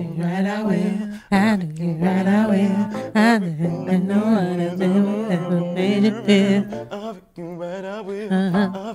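A man singing long, wordless melismatic runs with heavy vibrato over sustained electric keyboard chords, breaking off briefly about seven seconds in before going on.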